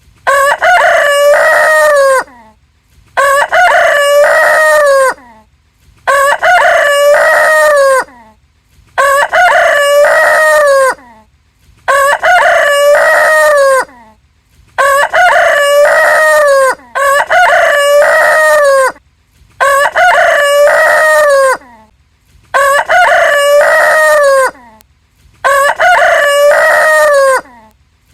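A rooster crowing cock-a-doodle-doo over and over: about ten near-identical loud crows, each about two seconds long, coming roughly every three seconds with silence between them.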